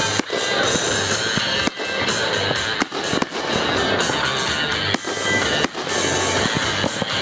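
Background music playing over a fireworks display, with firework shells bursting and crackling.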